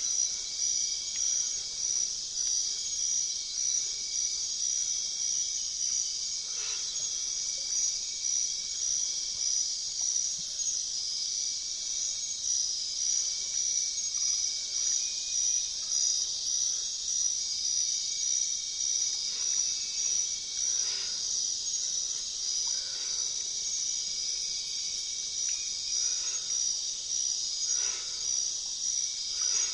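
Steady chorus of insects, a high, even buzzing trill that pulses rapidly without a break.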